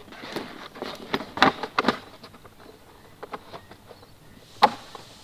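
Irregular soft taps and rustling, most of them in the first two seconds, then one sharp click near the end: footsteps and handling noise from someone moving with the camera.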